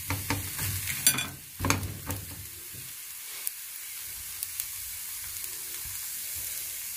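Crêpe sizzling in a buttered non-stick frying pan over low heat. A few light knocks and clicks come in the first two seconds, then a steady soft sizzle.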